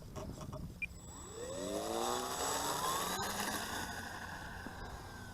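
Electric motor and propeller of a radio-controlled model plane whining, rising steeply in pitch about a second and a half in as it is throttled up, then holding a high whine that sinks slowly in pitch and fades.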